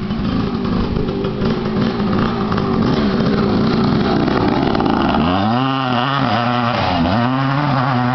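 Suzuki 250 dirt bike engine being ridden hard, the revs rising and falling; from about five seconds in, several clear sweeps up and down in pitch as the throttle is opened and closed.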